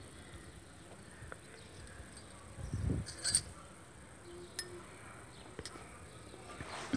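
Battered cauliflower pieces deep-frying in hot oil in a steel kadai: a faint steady sizzle, with a dull thump about three seconds in and a few sharp clicks after it.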